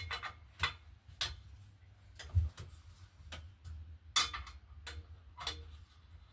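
A series of sharp, unevenly spaced clicks, roughly one to two a second, over a faint low hum.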